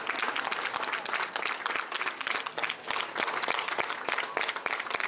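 Audience applauding: many pairs of hands clapping at once, a dense, steady patter of claps.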